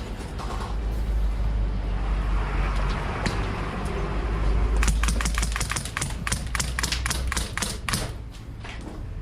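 Airsoft guns firing: a fast run of sharp clicks starting about five seconds in and lasting about three seconds, over a low rumble of wind and handling noise on the body-worn camera microphone.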